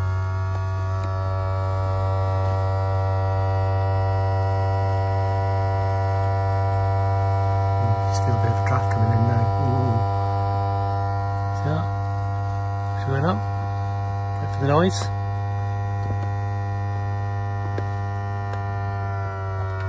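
Electric pop-top roof drive of a VW California Ocean campervan running as the roof rises: a steady hum with a whine of several tones, its pitch just starting to fall at the very end as the motor stops. A few short rising squeaks cut in around the middle.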